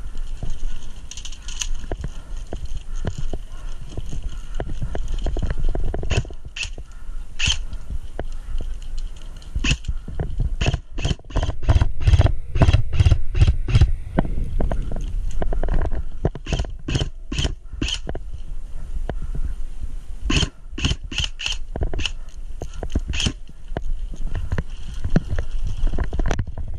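Airsoft guns firing single shots in quick runs of sharp pops, several runs in a row, over the rustle and rumble of a player moving through dry brush.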